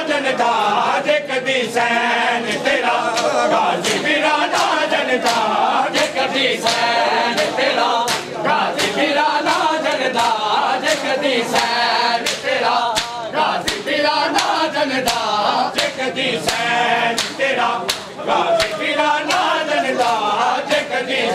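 Men chanting a Punjabi noha together in chorus, with sharp hand strikes on bare chests (matam) keeping a steady beat of roughly two a second.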